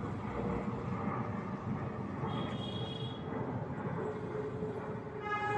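Steady outdoor background noise like road traffic, with a faint held tone and two short steady pitched sounds, the louder one near the end.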